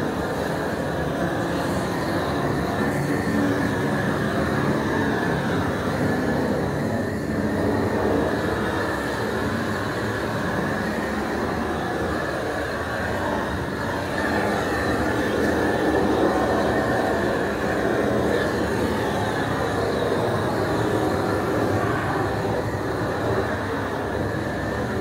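Gas-fed flame torch burning steadily, a continuous rushing noise with no breaks.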